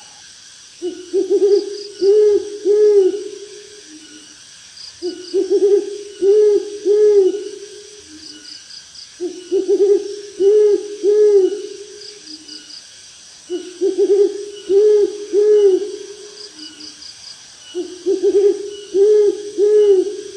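Owl hooting in a repeated phrase: a quavering note runs into two or three distinct low hoots, with a softer note trailing off. The phrase comes five times, about every four seconds.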